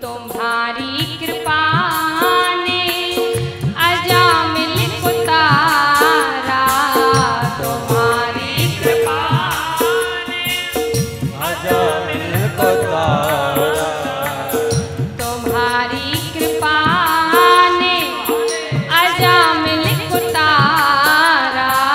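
A woman singing a Hindi Shiv bhajan over instrumental accompaniment with a steady beat.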